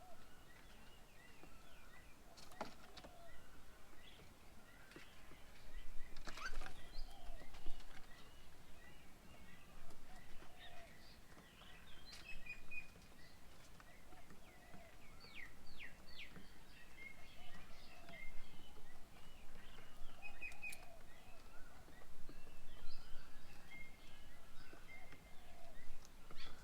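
Several birds chirping and calling outdoors, with short high chirps and trills overlapping throughout and a lower call repeating every couple of seconds. Two sharp clicks come about three and six seconds in.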